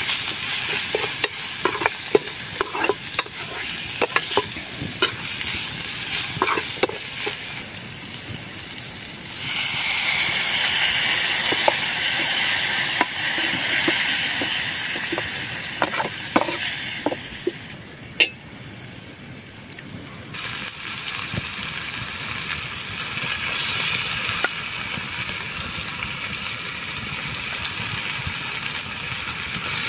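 Food frying in a pan over a wood fire while a metal spoon scrapes and taps against the pan, many quick clicks as it is stirred. About ten seconds in, a louder, steady sizzle takes over, dips briefly about two-thirds of the way through, then carries on.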